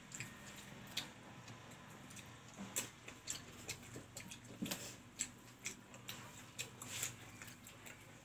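Mouth sounds of a person eating rice with her fingers, close to the microphone: irregular soft clicks and smacks of chewing and lips, several a second at times.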